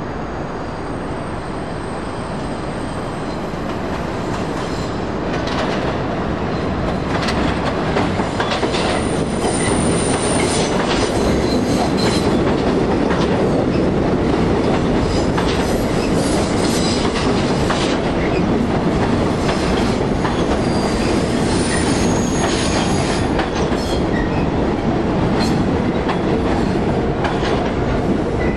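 R46 subway train rolling along an elevated track into the station, its steel wheels clacking over rail joints with repeated knocks and squealing in short high-pitched spells. The rumble swells as the cars come close and stays loud as they pass alongside.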